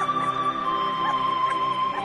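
Slow background music of long held notes, the top note stepping down in pitch about two-thirds of a second in.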